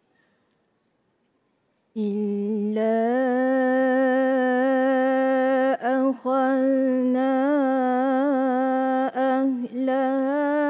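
About two seconds of near silence, then a woman's voice reciting the Quran in melodic tilawah style, drawing out long, ornamented held notes with a few short breaks.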